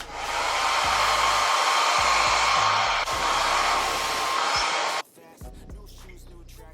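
Handheld hair dryer blowing steadily for about five seconds, then switched off suddenly, drying the freshly glued lace edge of the wig. Background hip-hop music continues underneath.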